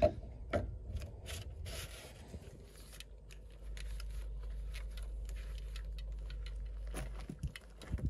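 Handling noise of gear and clothing: scattered clicks, rubbing and scraping, then a steady low rumble for a few seconds.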